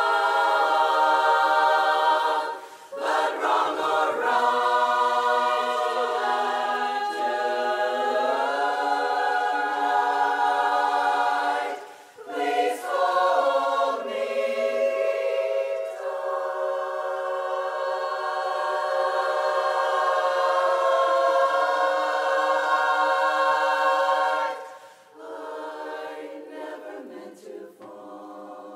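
Women's barbershop chorus singing a cappella in close harmony: sustained chords broken by short breaths between phrases, turning softer near the end.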